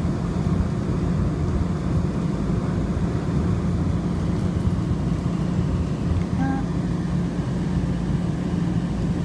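Muni Metro light-rail car running along its track, heard from inside the car: a steady rumble with a constant low hum.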